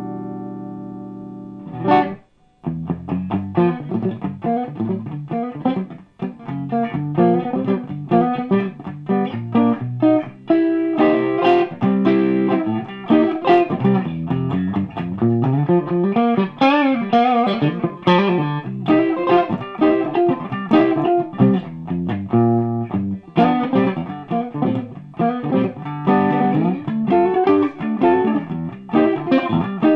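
Electric guitar played clean through a 100-watt all-tube Brit-Tone SVO amp with two KT88 power tubes and 12AX7 preamp tubes. A ringing chord dies away, and after a brief gap about two seconds in, a steady stream of picked notes and chord fragments follows.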